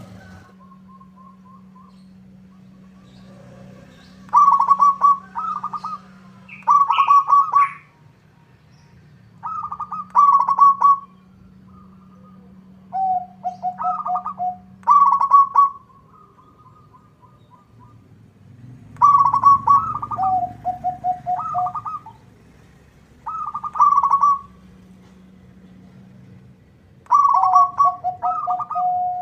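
Zebra dove (perkutut) singing its cooing song over and over: quick stuttering notes, some phrases ending in a lower held coo, about eight phrases a few seconds apart. A steady low hum runs underneath.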